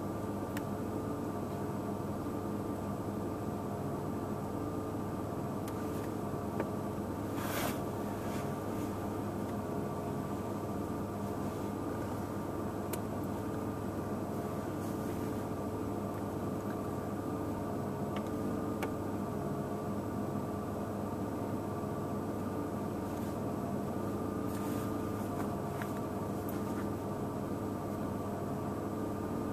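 Steady mechanical hum of a parked truck running, holding several constant tones without change. A brief knock sounds about seven and a half seconds in, with a few faint ticks later.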